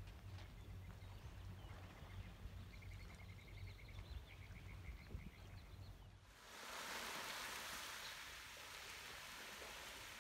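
Faint outdoor ambience in a calm anchorage: a low steady rumble, with a bird trilling two quick runs of short high notes a few seconds in. About six seconds in it cuts to a steady, soft hiss of small waves lapping on a pebble beach.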